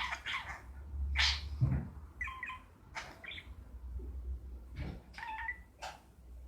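A pet talking bird making a string of short, harsh calls and mimicked noises, a few with a brief whistled tone, over a steady low hum.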